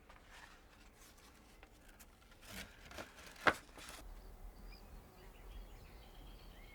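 Faint rustling and handling noises with one sharp click about three and a half seconds in. Then the background changes abruptly to a low steady rumble with faint bird chirps.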